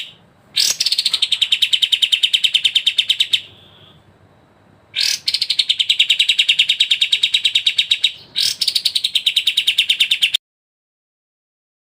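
A songbird giving loud, rapid chattering trills of about a dozen notes a second, in three bouts, each opening with a sharp downslurred note. The last bout cuts off abruptly about ten seconds in.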